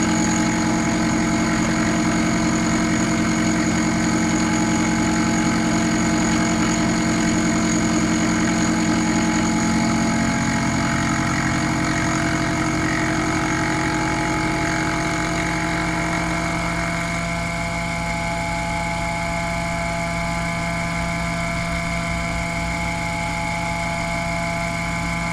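Sherline CNC mill running, its quarter-inch four-flute carbide end mill cutting 1018 steel at 2700 RPM: a loud, steady whine of several tones. About 17 seconds in, the low hum drops away and a higher tone comes up.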